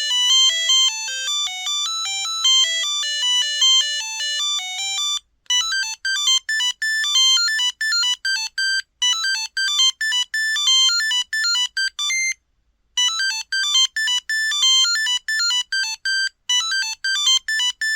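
Samsung Anycall SCH-X140 mobile phone playing monophonic ringtone melodies, one beeping note at a time. One melody runs for about five seconds. After a brief break comes a faster run of short staccato notes, broken again about twelve seconds in before carrying on.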